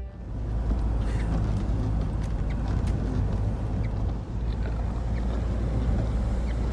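Steady low rumble of a van's engine and road noise heard inside the cab while driving, with a few faint ticks over it.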